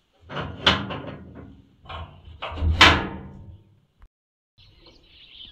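A door being unlatched and opened: rattling and clattering with two loud bangs, about a second in and about three seconds in, then a single click.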